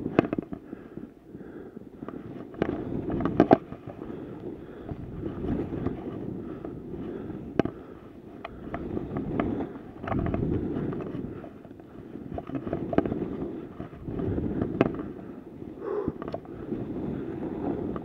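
Skis scraping and hissing through chopped-up, tracked snow, heard from a camera on the skier, the noise swelling and fading with each turn every couple of seconds. Sharp clicks and knocks come throughout, loudest about three seconds in.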